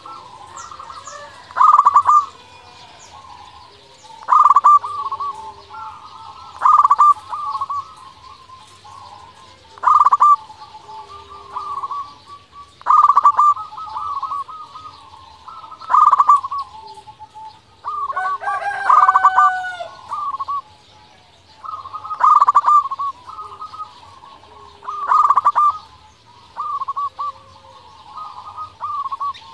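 Zebra dove (perkutut) singing its cooing song over and over: a short phrase of quick rolling coos comes about every three seconds.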